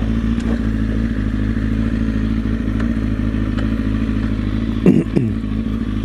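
Motorcycle engine running steadily at low speed, with a brief swoop in pitch about five seconds in.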